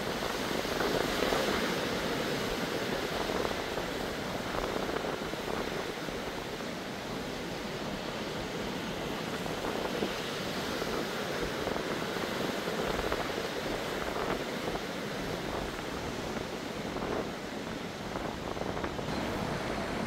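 Rough sea surf, stirred up by a typhoon, breaking and washing over rocks below a cliff in a steady rushing wash, slightly louder about a second in. Wind gusts on the microphone add a low rumble underneath.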